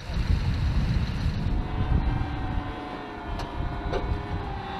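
Heavy low rumble of an LAV-25 eight-wheeled armored vehicle's diesel engine running. About a second in, a steady whine that wavers slightly in pitch joins it, with a couple of faint clicks near the end.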